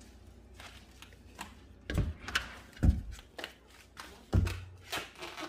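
Footsteps and handling knocks from someone walking while carrying a phone camera: a few scattered dull thumps with quiet room tone between.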